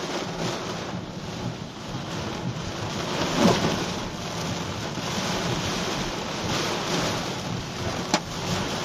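Heavy rain mixed with hail drumming on a car's roof and windscreen, heard from inside the car as a dense patter of small impacts. A louder swell comes about three and a half seconds in, and a sharp knock near the end.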